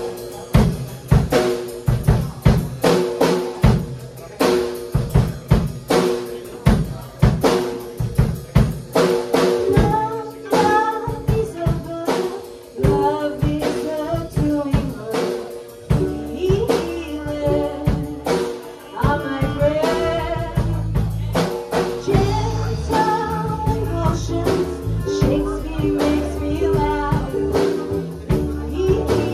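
Live band playing a slow piece: a steady drum-kit beat with rim clicks under sustained violin notes. A melody line with vibrato comes in about ten seconds in, and upright bass notes join from about sixteen seconds.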